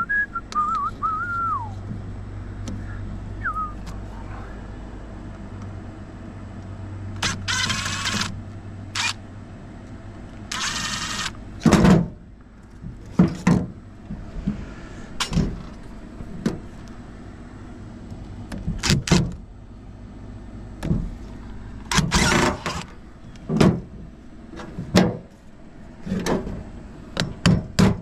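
Irregular knocks and thuds of metal parts being handled and struck during the teardown of an air-conditioning unit for scrap, turning into a quick regular run of strikes near the end. Two brief noisy bursts come in the first half, over a low steady hum.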